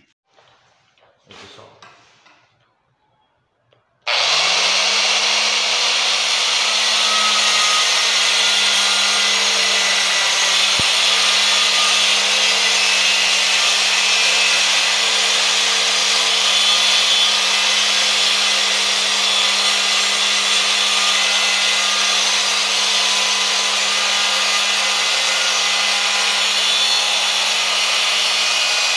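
Angle grinder with a thin diamond porcelain-tile disc starting about four seconds in, spinning up, then running steadily as it cuts a 45-degree bevel along the edge of a porcelain tile. The grinder is a 220-volt machine run on 110 volts, so it turns at reduced speed.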